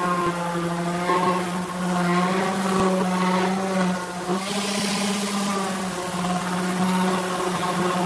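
Random orbital sander running steadily while sanding a pine board: a constant motor hum under a sanding hiss that swells and fades as the pad is moved over the wood.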